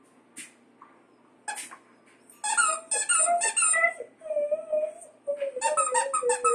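Squeaky plush platypus toy squeaked by a Siberian husky chewing it: two single squeaks, then a quick run of squeaks, a longer wavering squeal about halfway through, and another quick run near the end.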